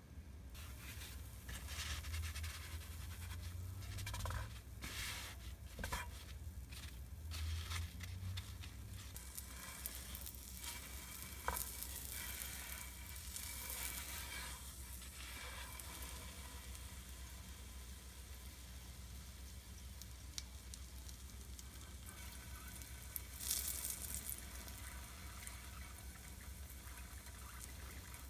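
Butter sizzling in a frying pan as kirimochi rice cakes fry, with scattered clicks and knocks over the first several seconds. About 23 seconds in, the sizzle briefly gets louder.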